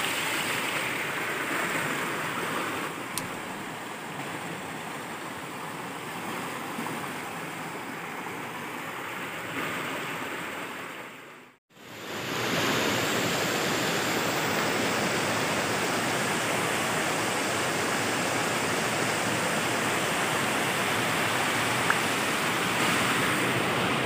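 Steady rush of water flowing over the rocks of a shallow stream. It drops out for a moment about halfway through, then resumes a little louder.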